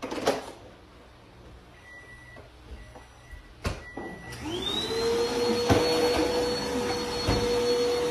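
A couple of sharp clicks, then about four seconds in the Dirt Devil Vigor Cyclonic Pet vacuum switches on, its motor whine rising quickly in pitch and then running steadily.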